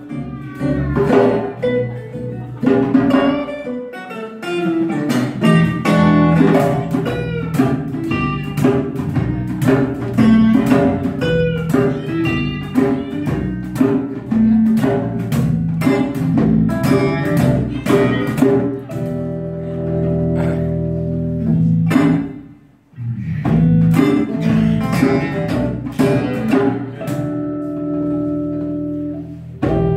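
Live acoustic band playing: acoustic guitars and electric bass guitar with hand drums (cajon and djembe), mostly plucked and strummed notes. There are some held chords, and a brief break in the playing about two-thirds of the way through before the band picks up again.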